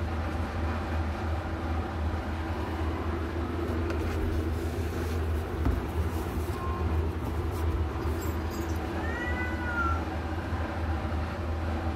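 Newborn kittens mewing: a few thin, high-pitched cries that rise and fall, clearest about nine to ten seconds in, over a steady low hum.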